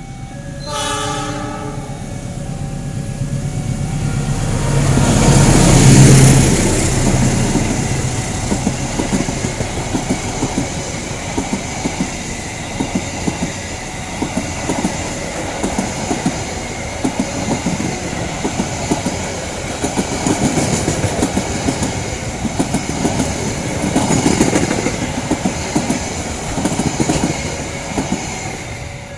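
A short horn blast about a second in, then a CC206 diesel-electric locomotive passing close, loudest around six seconds in, followed by passenger coaches rolling by with a steady clickety-clack of wheels over the rail joints.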